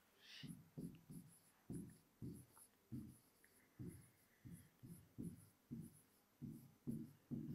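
Faint pen strokes on an interactive whiteboard screen as words are handwritten: a quick series of short scrapes and taps, about two a second.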